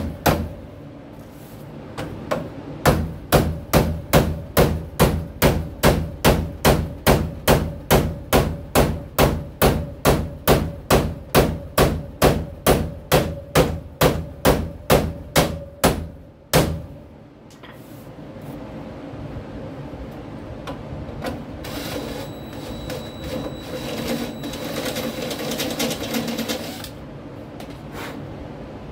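Steady hammer blows on metal at a 1926 Ford Model T's front leaf-spring hanger, driving a spring bushing, about three strikes a second. The blows stop a little past halfway, and quieter clinking and handling of parts follows.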